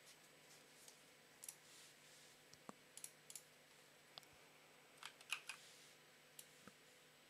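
Scattered, irregular soft clicks of computer keys, with a quick cluster about five seconds in that holds the loudest click, over faint room hiss.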